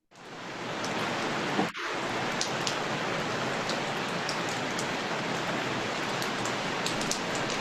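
Recording of steady rain falling: a dense, even hiss with scattered sharp drop ticks. It fades in at the start and breaks off briefly a little under two seconds in.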